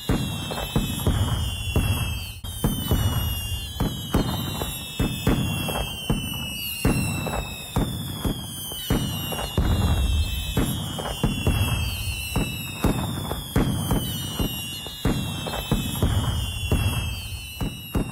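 Fireworks going off in a continuous barrage: many sharp bangs and crackles, with a falling whistle from a whistling firework about every second and a half.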